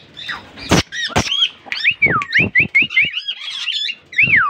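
A flock of plum-headed parakeets and other parakeets calling: a run of short whistled calls that glide up and down, mixed with a few sharp harsh squawks. The calls come as males in the aviary are behaving aggressively toward each other.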